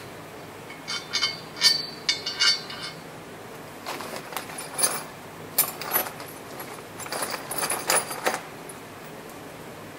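Metal bolts and nuts from a trailer-hitch kit clinking and rattling as they are handled and sorted. A few bright ringing clinks come first, then a longer run of clatter from about four to eight seconds in.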